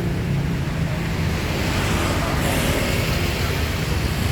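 Tour bus diesel engine idling steadily while the bus stands waiting, with a steady rushing noise over it.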